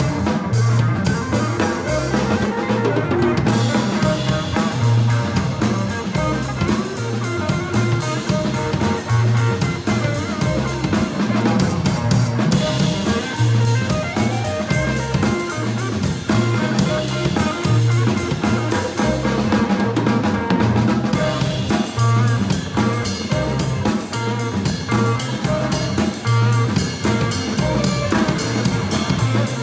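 Live jazz-funk jam on a drum kit and an electric guitar, busy drumming with rimshots and kick drum over a repeating low bass line.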